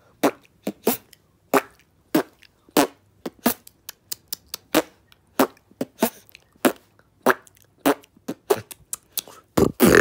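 Vocal beatboxing: a steady beat of short mouth-made kicks, snares and bass sounds, about three a second, with a longer, louder sound starting near the end.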